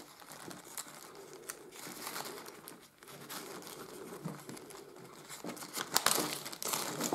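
Thin clear plastic bag crinkling as hands open it and handle it, with small scattered clicks; it is busiest about six seconds in.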